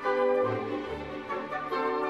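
Orchestral background music, strings holding long notes over bass notes that change about every half second.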